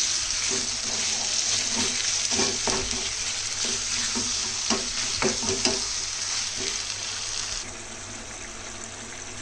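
Chicken pieces sizzling in oil and tomato masala in a kadai while being stirred, with scattered scraping knocks of the spoon against the pan. The sizzle drops quieter about three-quarters of the way through.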